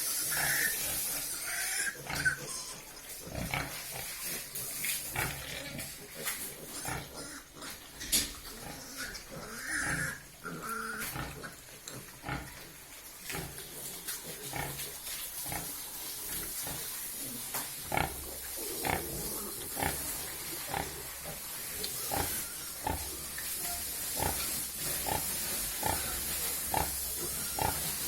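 White pigs squealing and grunting in a pen. Short squeals come near the start and around ten seconds in, then a string of short sharp grunts at roughly one a second through the second half.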